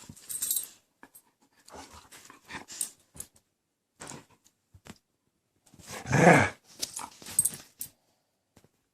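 A dog makes short, quiet growls and huffs while playing, with one louder call about six seconds in.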